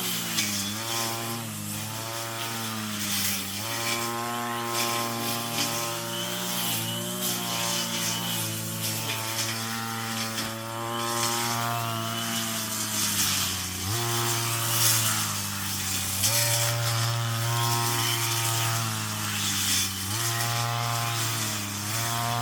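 Brush cutter engine running at high revs, its pitch sagging and picking up again over and over as the cutting head bites into weeds, with a rattling hiss of cut growth.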